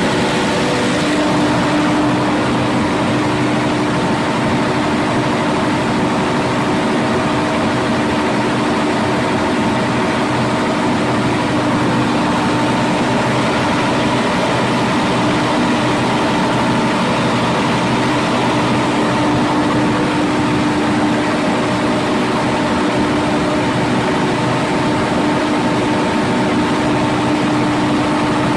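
Caterpillar C32 V12 diesel generator engine running steadily at constant speed, with a steady hum and whine over the engine noise.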